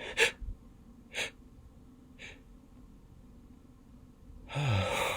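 A man breathing in short, quick breaths about once a second as he works up to an induced sneeze. Near the end comes a louder, longer breath with a falling voice in it.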